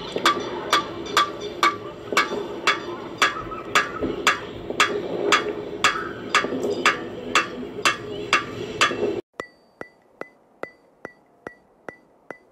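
Background music with a steady ticking, wood-block-like beat about twice a second. About nine seconds in, the fuller music cuts off abruptly and only fainter ticks carry on.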